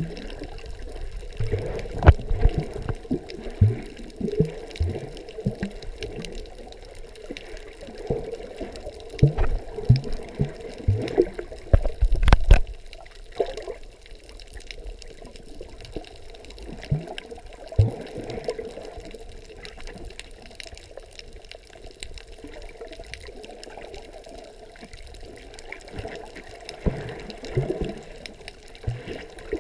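Muffled splashing and bubbling of a swimmer's strokes, heard underwater through a GoPro's waterproof housing, with a few sharp thumps, the loudest about twelve seconds in.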